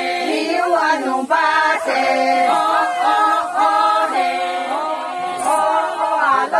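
A group of women singing a traditional Sangtam Naga song together, unaccompanied, in phrases of long held notes.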